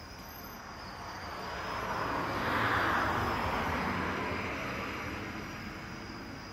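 A car driving past, its noise swelling to a peak about three seconds in and then fading away, with crickets chirping steadily behind it.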